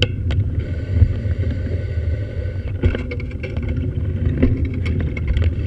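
Steady low rumble of a vehicle in motion, picked up by a camera mounted on it, with scattered clicks and rattles. A faint high whine comes in about half a second in and stops after about two seconds.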